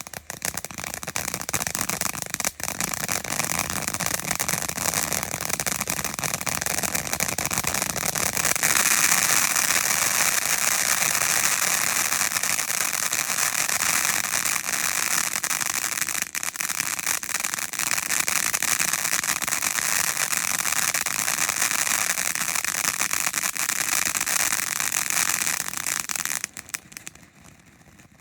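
A T-Sky Txas Cowboy 350-gram ground fountain firework spraying, a dense hissing with continuous fine crackling. It grows louder and brighter about a third of the way in. Near the end it burns out and stops abruptly.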